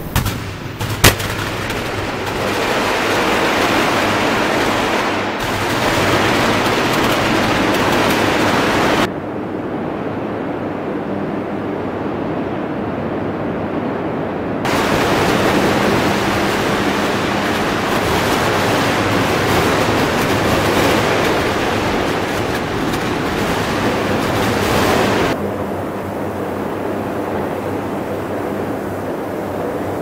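Electric arc furnace melting steel: a loud, irregular crackling roar, with a sharp crack about a second in. Midway the hissing top of the sound drops away for about six seconds, then returns.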